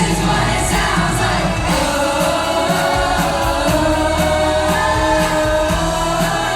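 Junior choir singing together over a pop backing track with a steady beat, holding one long note through the middle.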